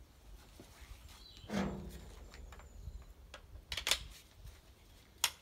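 Clicks and knocks of a pressure washer's spray lance being reconnected to the gun: a scraping knock about a second and a half in, a cluster of clicks about four seconds in, and one sharp click just before the end.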